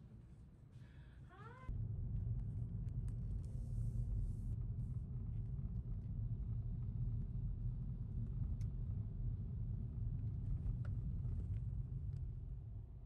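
Steady low rumble of a car driving on a highway, starting suddenly a couple of seconds in.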